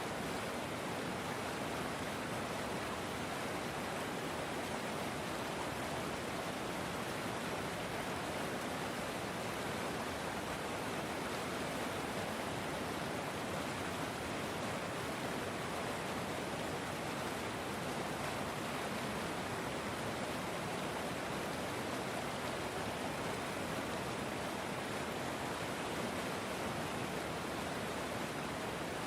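River water flowing: a steady, even rush with no breaks or changes.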